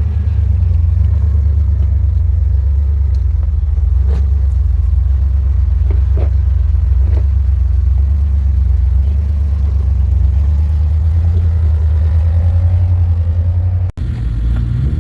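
Off-road 4x4's engine and drivetrain running in a steady low rumble while crawling a rocky trail, with a few sharp knocks in the middle. The sound briefly drops out near the end.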